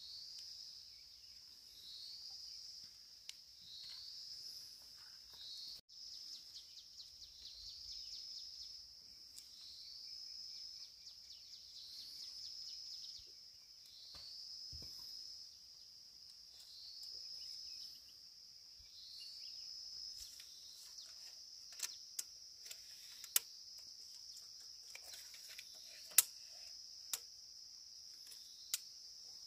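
An insect calling: a high buzz that rises and then holds for about a second, repeated about every two seconds, merging into one steady high buzz after about twenty seconds. A few sharp knocks near the end.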